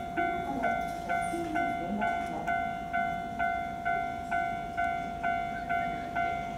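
Japanese electronic level-crossing bell ringing 'kan-kan' at about two strikes a second, each strike sharp and fading, warning of the approaching train.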